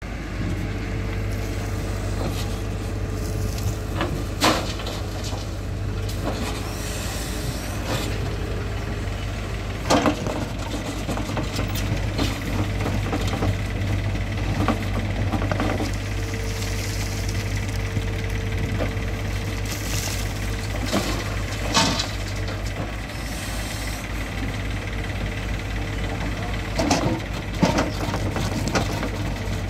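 Bull SuperSmart backhoe loader's diesel engine running steadily under load as its bucket digs into hard, stony soil, with a mid-pitched whine that comes and goes and several sharp knocks and clatters of the bucket against rock.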